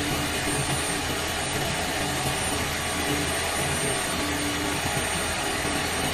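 CNC turn-mill machine tool running: a steady mechanical whir and hiss with a faint high-pitched whine held throughout.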